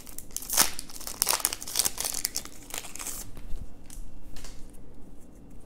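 Foil trading-card booster pack wrapper crinkling and crackling as it is torn open. After about three seconds it gives way to fainter clicks and rustles as the cards are taken out and handled.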